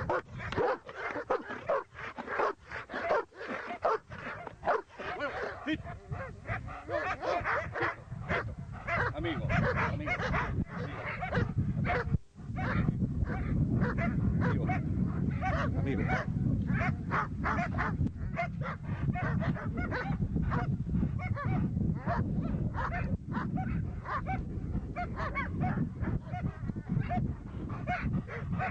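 A dog barking in rapid, repeated bursts during attack training, set off by the command to attack. There is a brief break about twelve seconds in, after which a steady low rumble runs under the barking.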